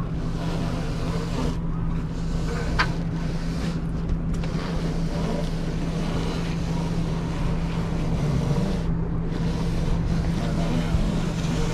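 A motor running steadily, giving a constant low hum over a rumble, with a couple of faint clicks.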